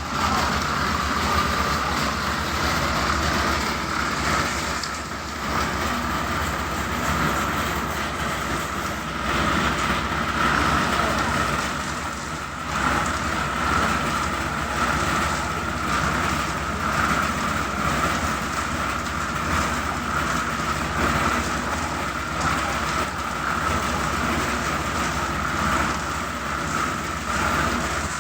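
Concrete-pouring machinery running continuously with a steady whine and a dense rattle.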